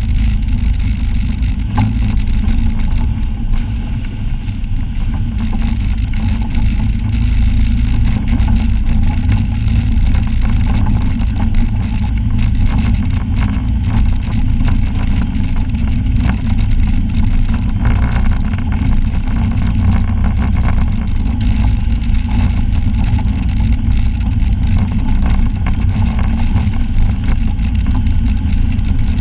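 Side-by-side UTV engine running steadily as the vehicle drives over a rough, rocky trail, with frequent short clicks and knocks from the rough ground and the body rattling.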